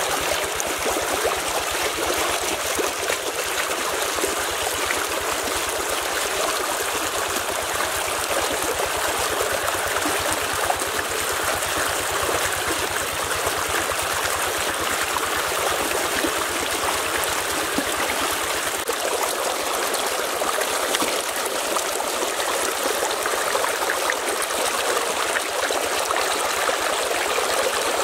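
Shallow rocky stream rushing over stones: a steady, even rush of flowing water.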